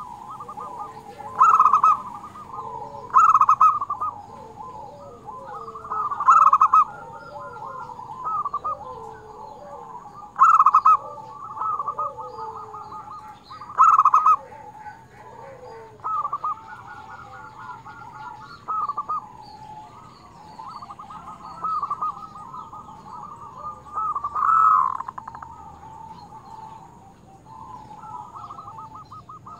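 Local zebra dove (perkutut) cooing in full song: short, rapid stuttering coo phrases near the top of a dove's range, the loudest every few seconds, with softer cooing runs between them.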